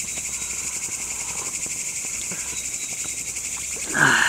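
Chorus of night crickets, a steady, fast-pulsing high trill. A short, louder noise comes about four seconds in.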